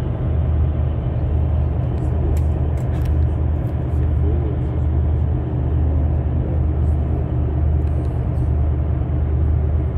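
Tour coach's engine and road noise heard inside the cabin while driving: a steady low rumble.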